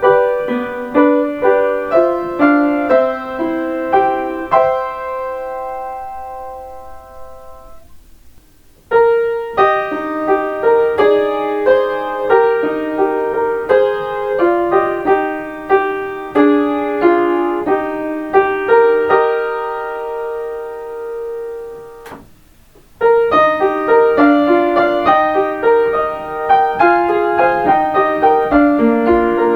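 Solo piano playing Kintetsu limited express onboard chime melodies, arranged by ear. Three short tunes in turn: the first two each end on a held chord that fades away, with a brief gap before the next begins.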